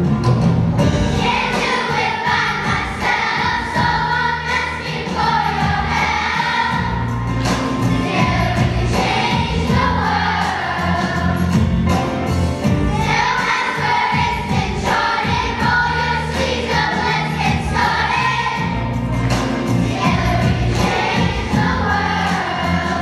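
Large children's choir singing in unison and parts, over instrumental accompaniment with steady low notes and a regular beat.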